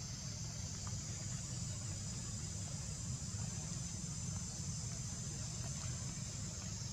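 Steady high-pitched insect buzz over a constant low rumble.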